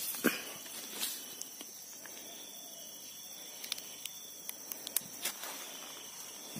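Scattered footsteps and rustling through tall grass on a canal bank, a few soft thumps and ticks, over a steady high chirring of insects.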